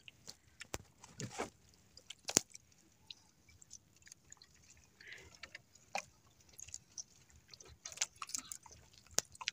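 Handling of a fishing handline in a small outrigger boat: scattered faint clicks and taps, the sharpest about two and a half seconds in, with light water sounds.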